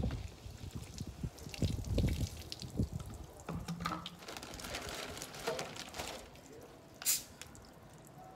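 Liquid poured and dripping into a drinking glass, with knocks and clinks of bottle and glass on a glass tabletop. A short hiss comes about seven seconds in.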